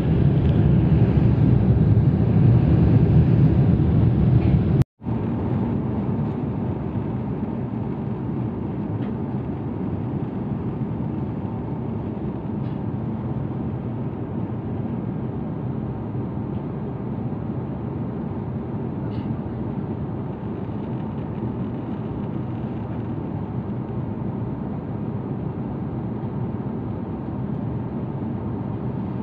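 Steady engine and airflow noise of an airliner heard from inside the passenger cabin. It cuts out for an instant about five seconds in, then carries on a little quieter.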